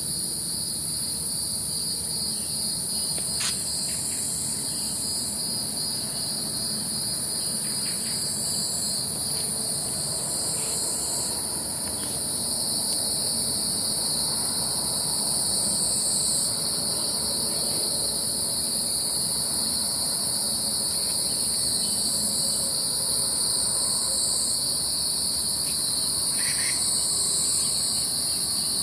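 Steady chorus of insects, a continuous high shrill in two pitch bands, the upper one shifting in pitch every few seconds.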